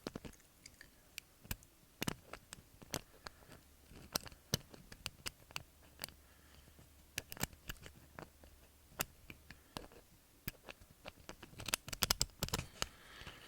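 Lock pick and tension wrench working the pins of a pin-tumbler doorknob lock: many small, irregular metallic clicks and scrapes, with a quick run of clicks near the end.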